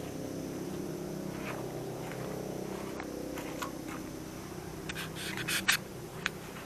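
Footsteps and scuffs on a rough path with camera handling, a few isolated ones early and a cluster about five seconds in, over a steady low drone that fades near the end.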